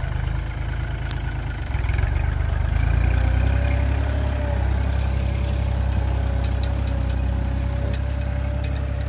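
Kubota L3218 tractor's three-cylinder diesel engine running steadily under load as it pulls a five-disc plough through dry soil. It gets louder from about two seconds in as the tractor comes close, and a faint steady whine sits over it from about four seconds in.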